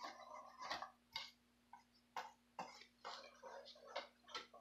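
Wire whisk beating a runny egg mixture in a stainless steel bowl: faint, irregular clinks of the wires against the metal amid wet sloshing.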